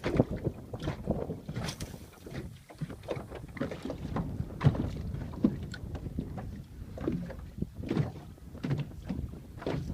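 Wind buffeting the microphone on a small fishing boat, with irregular knocks and thumps of chop slapping against the hull.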